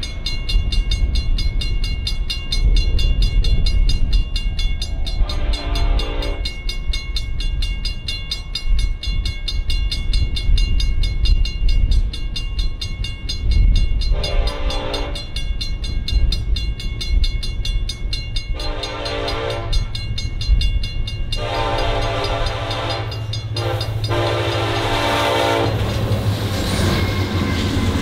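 Railroad grade-crossing bell ringing rapidly while an approaching Norfolk Southern locomotive, an EMD SD70ACe, sounds its horn in long blasts for the crossing: one, a pause, two more, then a last pair that nearly run together. From about two-thirds in, the locomotive's diesel engine drone builds as it arrives.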